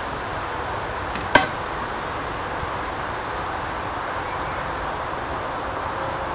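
Steady background hiss, with one sharp clank about a second and a half in from the galvanised metal chicken feeder being handled.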